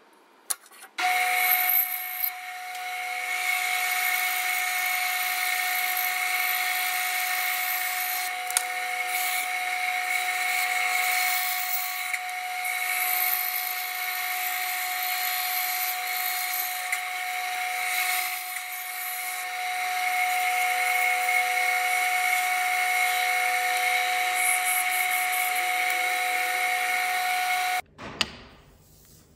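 Bandsaw running with a steady whine as its blade cuts a curve through a wood block fed by hand; the sound cuts off suddenly near the end.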